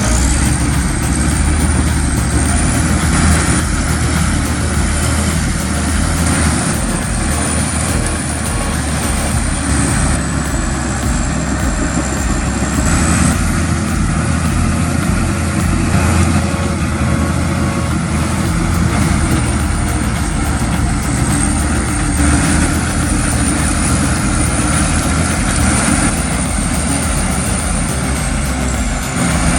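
Heavy diesel engine of a tracked bulldozer running steadily under load, with a deep rumble and a thin, wavering high whine.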